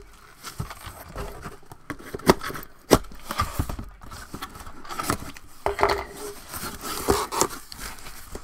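Cardboard shipping box being slit open with a box cutter: tape and cardboard scraping and tearing, with sharp knocks and taps as the box is handled.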